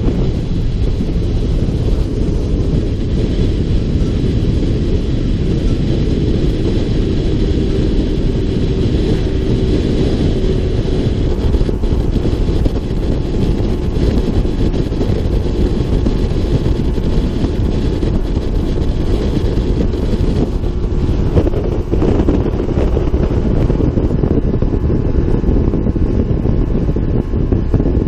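Wind buffeting the microphone on a boat running at speed, over the steady drone of its outboard motor and water rushing past the hull.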